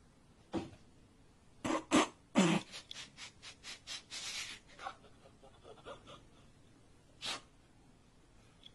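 A person laughing in short breathy bursts: a few single bursts, then a quick run of laughs at about five a second, and one last burst near the end.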